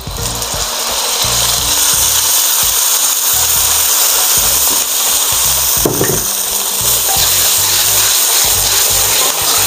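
Water poured into hot oil and masala paste in a stainless steel wok, hissing and sizzling hard as it flashes to steam. The sizzle starts with the pour and holds steady.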